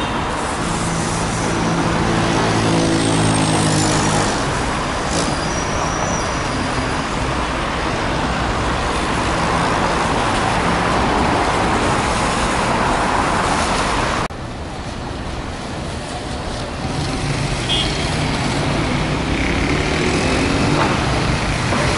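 City traffic on a rain-wet avenue: cars and buses passing with tyre noise on the wet road. A heavy vehicle's engine runs loudly in the first few seconds and again near the end, and the traffic noise drops suddenly about two-thirds of the way through.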